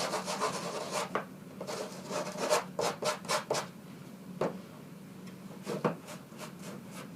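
Quick, scratchy rubbing strokes over embossed cardstock. There is a flurry of fast strokes, a pause past the middle, then a few more strokes.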